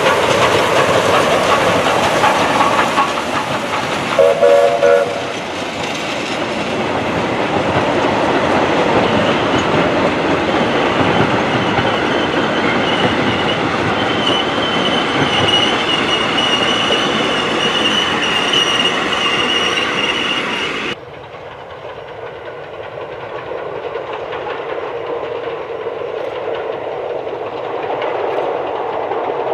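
Class 19D steam locomotive and its train passing close by, its noise giving way to the coaches rolling past with wheels clacking over the rail joints; a short whistle blast about four seconds in. About two-thirds through it cuts suddenly to the train heard faintly from afar.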